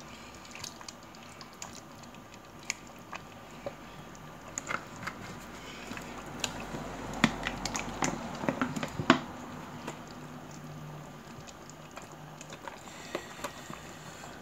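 Pot of bitter leaf soup simmering, with palm oil just added: soft bubbling with scattered small pops and light clicks, and a handful of sharper knocks around the middle.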